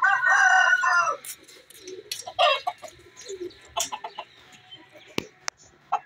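A rooster crowing, the call lasting about a second at the start, then scattered clucks and squawks from the chickens. Two sharp clicks or knocks come near the end.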